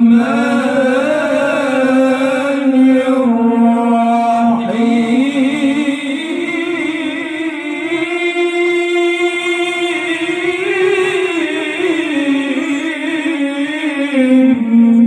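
A trio of male qaris reciting the Quran together in melodic tilawah style over microphones, drawing out long held notes with ornamented turns. The pitch steps up about five seconds in and sinks back near the end.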